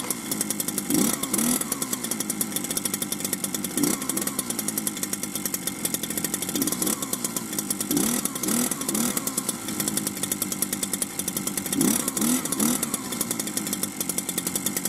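Two-stroke gasoline engine of a VESSEL GT-3500GE-V impact wrench running steadily, with its pitch briefly swooping up and falling back several times.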